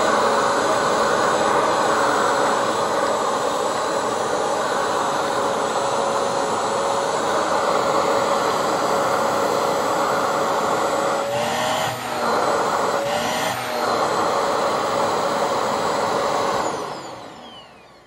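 Hoover Swivel XL Pet bagless upright vacuum cleaner running: a steady motor whine over rushing air. Twice in the second half the air rush dips and the motor pitch rises briefly as a hand blocks the airflow, and the motor doesn't strain. Near the end it is switched off and winds down.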